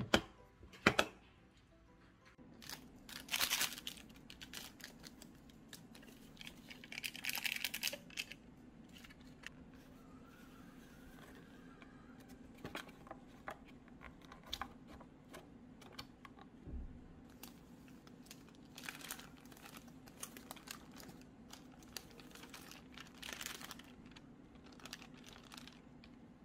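Two sharp clicks at the start as a plastic food container's lid latches snap shut, then food packaging crinkling and tearing at intervals: the lid of an instant cup noodle and a seasoning sachet, and the paper wrapper of a kimbap roll. A steady low hum runs underneath.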